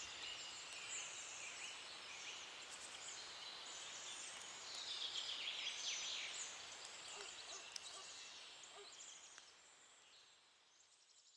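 Many small birds chirping and singing over a faint outdoor hiss, busiest about halfway through and fading out near the end.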